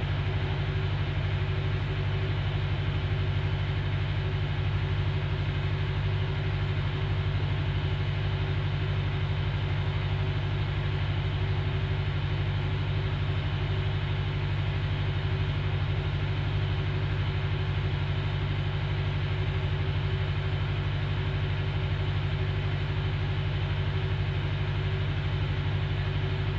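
A steady, unchanging low mechanical hum with no distinct events.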